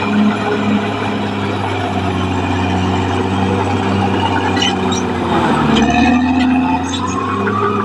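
Caterpillar D6R XL bulldozer's diesel engine running steadily under load, its pitch dipping and rising again about six seconds in. Several sharp metallic clanks come in the second half.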